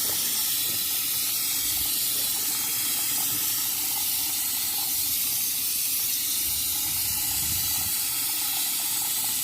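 Water rushing steadily through the solar water heater's plumbing, a continuous even hiss.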